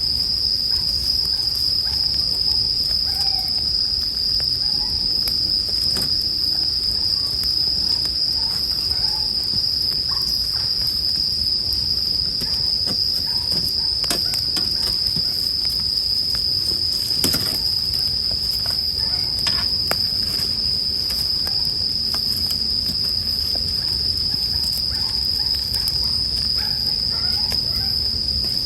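Bell crickets singing in a steady, unbroken chorus, with the light crackle and pop of a wood campfire scattered through it; one louder pop about 17 seconds in.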